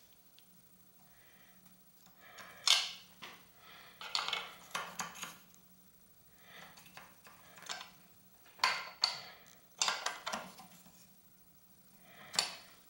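Light metallic clicks and rattles of a Y hex wrench working the clamp bolt of a bar-end shifter inside an aerobar end, coming in short scattered spells.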